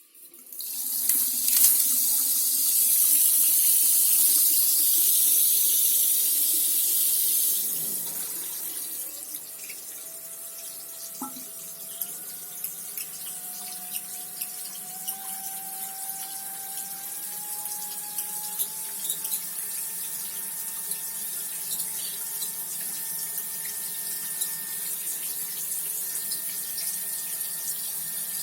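Water rushing loudly through a plumbing fixture for about eight seconds, then running more quietly with a clear whistle whose pitch climbs slowly in small steps.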